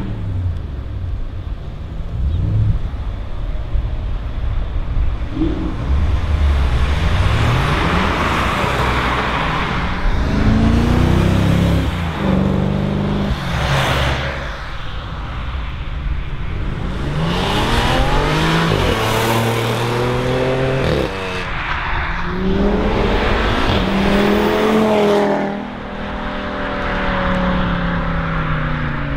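Several cars accelerating hard past one after another, each engine rising in pitch through the gears with short drops at the shifts.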